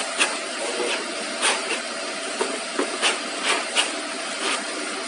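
Abrasive sanding belt being handled and fitted onto a grinding machine's rollers: irregular sharp taps and scrapes of the belt and hands against the sheet-metal cabinet, over a steady mechanical hiss.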